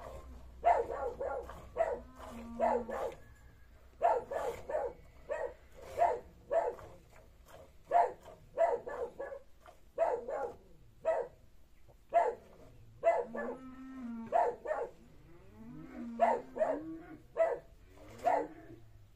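A goat being milked by hand into a galvanized metal pail: rhythmic squirts of milk striking the pail, about two to three a second, steady throughout.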